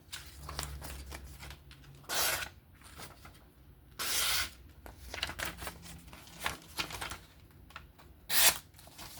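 Freshly sharpened folding knife slicing through paper in a sharpness test: three short hissing cuts, about two seconds apart at first and then a longer gap, with faint scratchy rustles between them.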